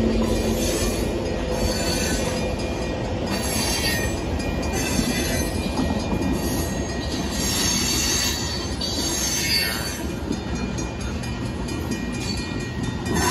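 Loaded sand hopper cars of a Union Pacific freight train rolling past a grade crossing: a steady rumble of steel wheels on rail, with high-pitched wheel squeal and hiss coming and going every second or two.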